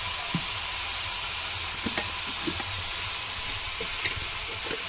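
Food sizzling in a hot pan with a steady hiss while being stir-fried for pancit, with a few light knocks of the stirring utensil.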